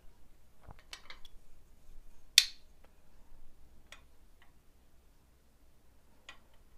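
Small sharp metallic clicks from a titanium-handled Chris Reeve Sebenza folding knife being handled and laid down on a marble surface. The loudest click comes about two and a half seconds in, with a few fainter ticks around it.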